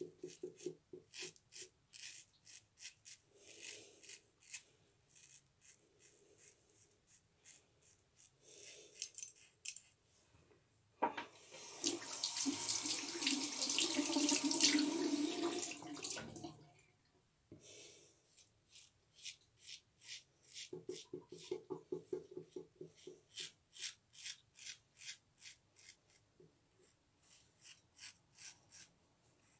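Ever Ready safety razor scraping through lathered beard stubble in quick, repeated short strokes. About eleven seconds in, a tap runs loudly for about five seconds, then the scraping strokes start again.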